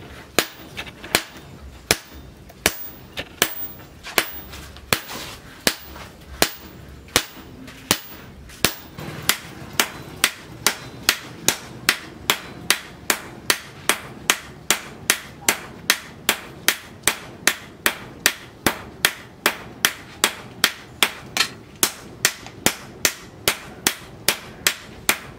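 Hammers striking red-hot steel on an anvil as a cleaver blade is forged: sharp metallic blows, slower and uneven at first, then from about nine seconds in a steady fast rhythm of two to three blows a second as a striker's sledgehammer alternates with the smith's hand hammer.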